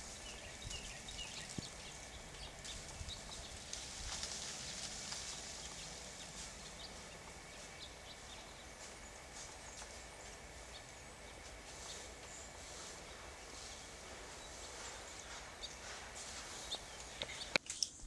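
Snow falling through magnolia trees: many faint, high ticks on the leaves over a steady hiss, with a few sharper clicks near the end.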